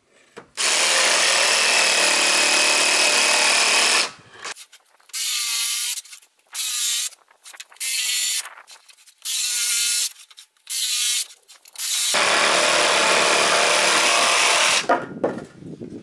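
Cordless jigsaw cutting through plywood: one long cut of about four seconds, then five short stop-start bursts with the motor spinning up and down, then another long steady cut of about three seconds near the end.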